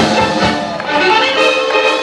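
A full pops orchestra playing, strings and brass together in sustained chords, with a strong accent right at the start.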